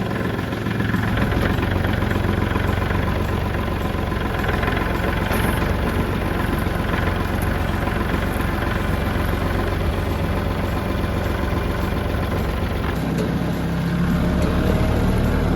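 Kubota open-station tractor engine running steadily, its note shifting near the end.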